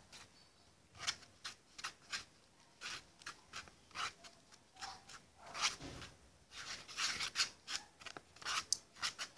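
A spoon scraping around a bowl in short, irregular strokes, two or three a second, as shaving cream is stirred into glue, with a denser run of scraping about six to seven seconds in.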